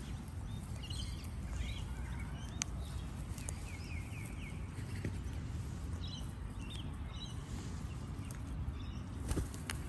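Sulphur-crested cockatoos feeding on a lawn at close range: beaks pecking and tearing at the grass give scattered sharp clicks and taps, with a few faint chirps, over a low rumble.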